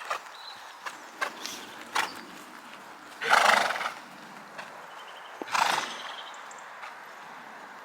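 A horse: a few sharp hoof knocks, then two loud, breathy, toneless blasts from the horse about two seconds apart, the first the louder.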